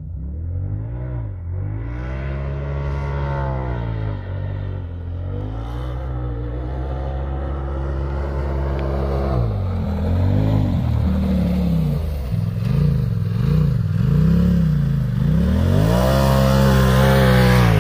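Side-by-side UTV engine revving up and down again and again as it is driven over sand dunes, growing louder over the second half as the machine comes closer.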